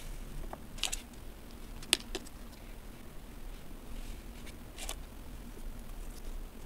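Fingers working plastic moulds in kinetic sand: soft crunching of the sand with a few short crackles and clicks, the sharpest about two seconds in.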